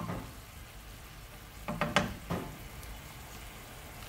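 Ground beef and onion simmering in water in a skillet, with a steady sizzle. A few sharp knocks sound close together about two seconds in, with a single click at the very start.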